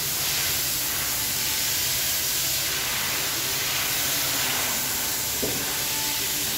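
Steady hiss, with one faint click about five seconds in.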